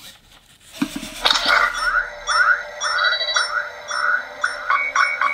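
ROBOSEN Buzz Lightyear robot's built-in speaker playing its electronic terrain-scan sound effect in response to a voice command: a run of rising chirps, about two a second, over a steady electronic tone, starting about a second in.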